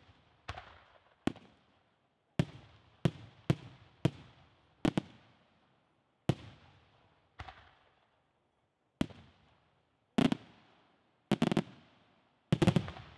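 Aerial firework shells bursting: a string of sharp bangs at uneven intervals, some in quick pairs, each trailing off in a fading echo. The loudest come as a quick cluster near the end.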